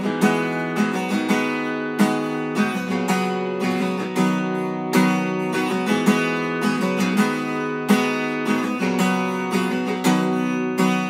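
Outro music: an acoustic guitar strummed in a steady rhythm, with ringing chords.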